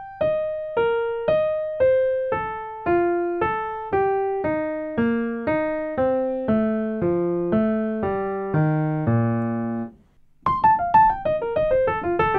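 Solo piano playing a single-note jazz line made of F major and E flat major triad shapes, about two notes a second, stepping down the keyboard to a low held note. After a short break about ten seconds in, the line starts again high up and runs down at roughly twice the speed.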